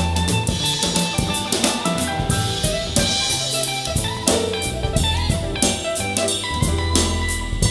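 Instrumental band music with a drum kit keeping a steady beat over sustained bass notes and guitar, played back through an in-ear monitor for a sound demo.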